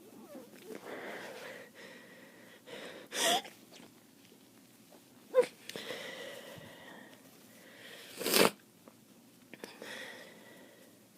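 A person with a wet head cold sneezing three times, a few seconds apart, each sneeze preceded by breathy, wheezy intakes of breath.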